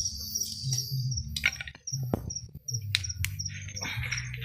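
Crickets chirping in a steady rhythm, about two short high chirps a second, with a few sharp clicks and a low rumble underneath.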